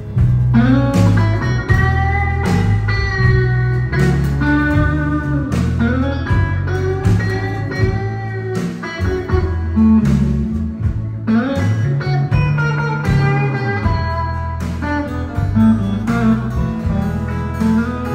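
Live electric guitar solo with notes bent up and down, backed by a band with bass and drums, in a bluesy country-rock song.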